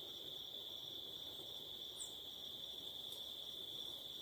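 Crickets chirring in one steady, continuous high trill.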